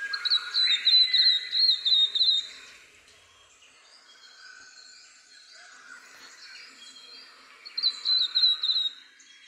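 Flame robin song: a phrase of about ten quick, high notes in the first two seconds or so, then a shorter phrase of the same notes near the end, with faint background sound in between.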